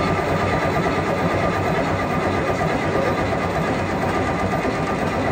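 Scania V8 diesel engine running steadily.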